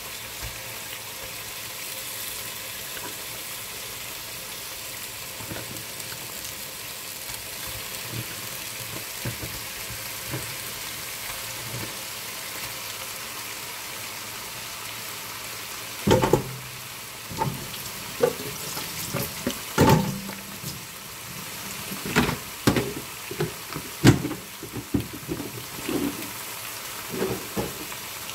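Raw lamb cubes sizzling in hot oil in a pot, a steady frying hiss, with soft clicks as more pieces go in. From about halfway there is a run of sharp knocks and clatters.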